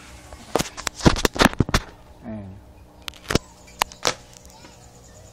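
A quick run of sharp clicks and knocks about a second in, the loudest sounds here, followed by a few single clicks a couple of seconds later.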